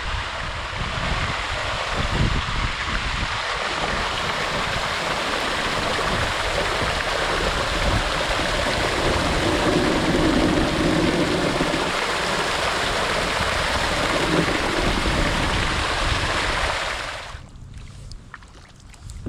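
Steady rush of river water over a shallow riffle, cutting off abruptly near the end.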